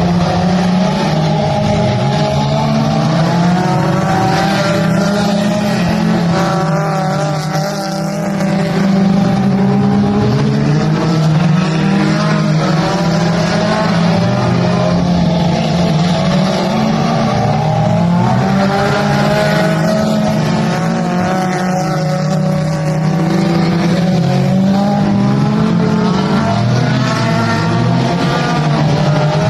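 Race car engines running hard on a dirt oval, their pitch rising and falling over and over as the cars accelerate down the straights and lift for the turns.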